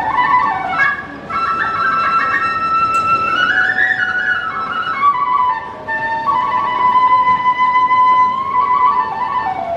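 Kagura bamboo transverse flute (fue) playing a slow melody of long held notes with sliding pitch changes, rising to a high note about four seconds in, then holding a steady note for about two seconds.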